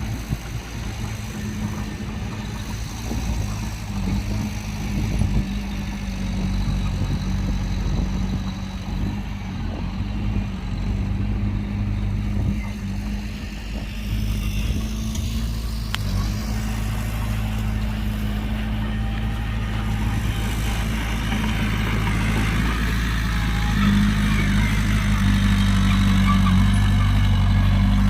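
Heavy diesel engine running steadily with a deep low hum, growing gradually louder toward the end.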